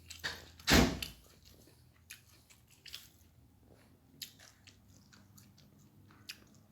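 A person eating close to the microphone: chewing and crunching with small scattered clicks, and one loud thump about three-quarters of a second in.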